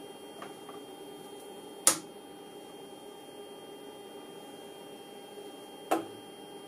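Steady electrical hum of bench test equipment, broken twice by a sharp click about four seconds apart.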